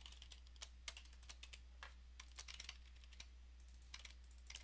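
Faint typing on a computer keyboard: irregular key clicks, some in quick runs, over a steady low electrical hum.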